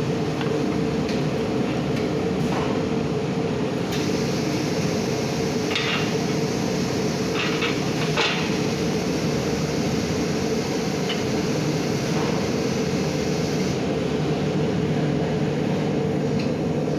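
Steady mechanical hum of workshop machinery, with a few sharp knocks around the middle from a shoemaker's hammer tapping a shoe on its last.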